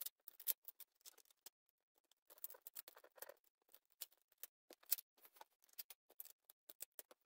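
Faint scattered clicks, crackles and rustles of fingers pressing and shifting a linoleum patch and the adhesive tape under it into place on a linoleum floor, with a couple of sharper taps about half a second in and about five seconds in.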